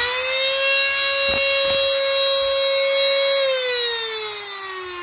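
Electric cut-off tool with a thin abrasive cutting disc spinning up and whining at a steady high pitch, running free, then switched off and winding down, its pitch falling steadily from about three and a half seconds in. Two brief knocks come about a second and a half in.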